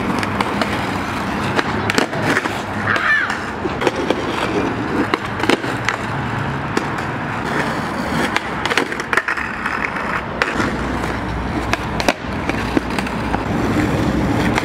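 Skateboard wheels rolling on a concrete sidewalk, broken by repeated sharp clacks of the board hitting the concrete as flatground tricks are popped and landed.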